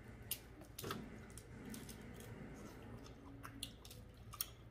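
Faint chewing of a mouthful of seafood-boil food, with a few soft scattered clicks.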